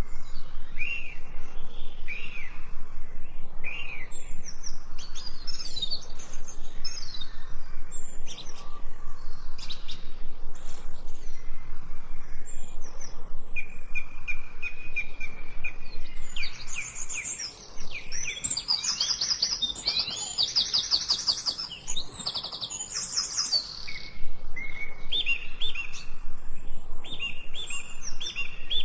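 Songbirds chirping and singing: many short sweeping chirps, with a single held whistled note partway through and a fast trill in the middle.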